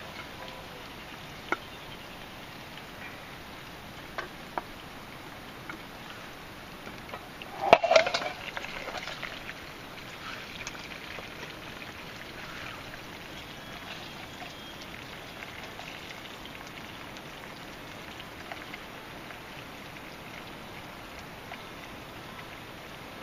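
Campfire burning with a steady hiss and scattered sharp crackles and pops, and a louder burst of crackling and knocking about eight seconds in.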